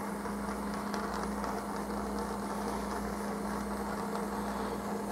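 Handheld plumbing torch burning steadily on a low flame, a constant hiss with a steady hum underneath.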